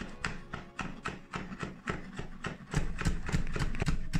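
Cleaver chopping seeded pale green peppers into small dice on a wooden cutting board: quick, even knocks of the blade on the board, about five a second.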